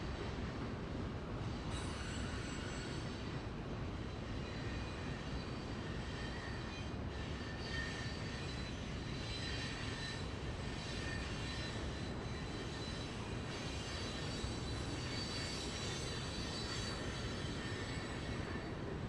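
A train rolling along the rails, steady wheel-and-rail noise with high-pitched wheel squeal coming and going.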